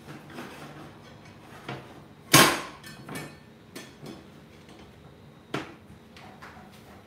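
Metal tongs clanking against a cast-iron skillet on a glass cooktop: a loud clank with a short ring about two and a half seconds in, another about five and a half seconds in, and lighter knocks in between.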